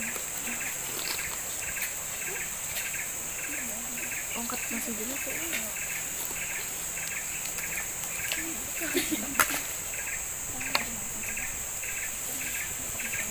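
Tropical forest insects: a steady high-pitched drone with a rhythmic chirp repeating about two or three times a second. A couple of sharp knocks stand out in the second half.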